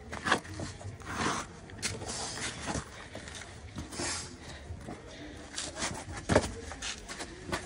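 Irregular footsteps and scuffs on sandstone rock, with a sharp knock a little after six seconds in.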